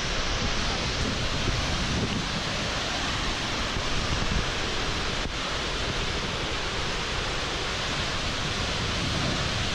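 Tall waterfall falling onto rocks into its plunge pool: a steady, even rushing of water.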